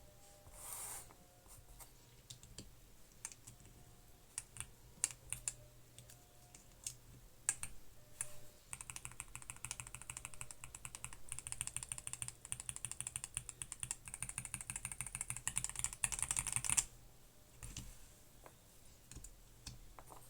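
Mechanical keyboard with factory-lubed linear switches whose stems ride on ball bearings, being typed on. Scattered single key presses come first, then fast continuous typing for about eight seconds that stops abruptly.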